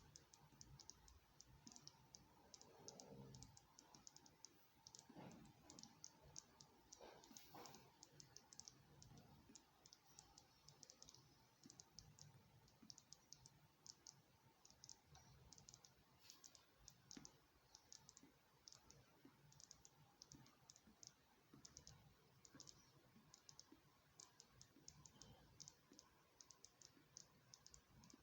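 Faint, fast, irregular crackle of tiny clicks, several a second: gas bubbles fizzing and popping at the vent of a lead-acid battery on charge.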